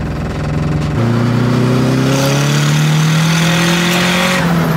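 Car engine accelerating under load while driving. Its pitch rises steadily for about three seconds, then the revs drop near the end, as at a gear change.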